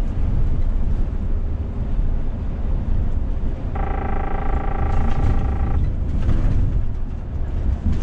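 Steady engine and road rumble inside the cab of a Scania S500 truck cruising on a highway. About halfway through, a steady pitched tone sounds for about two seconds.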